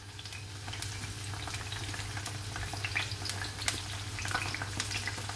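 Hot oil sizzling and crackling as whole bitter gourds fry in a frying pan, with scattered pops that grow busier over the seconds. A low steady hum sits underneath.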